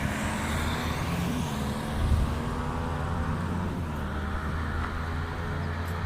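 Suzuki Gixxer SF 250's engine running steadily at low speed through a full-system Yoshimura exhaust, an even low note with no revving.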